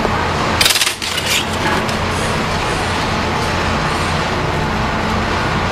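Steady background rumble with a low hum, like road traffic. About a second in, a brief metallic rattle as thin metal skewers are handled.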